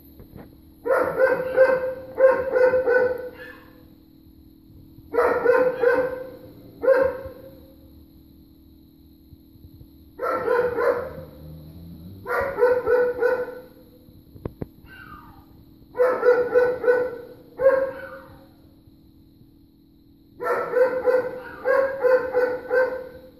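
Neighbours' dogs barking in repeated bouts of several barks at a time, with pauses of a second or more between bouts, still going on and on.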